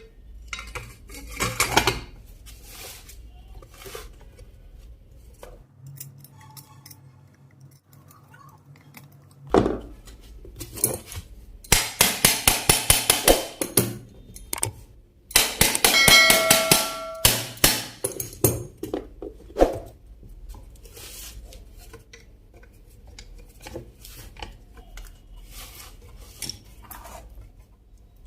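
Metal tools and iron parts being handled on a workbench: scattered clicks and knocks, with two quick clattering spells in the middle, the second with a brief metallic ring.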